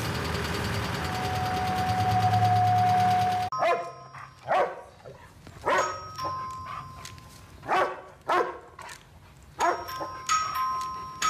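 Music for the first three and a half seconds, cutting off abruptly. Then a German shepherd barks about seven times, loudly, spaced about a second apart, while a two-note door chime rings twice: the dog barking at someone at the front door.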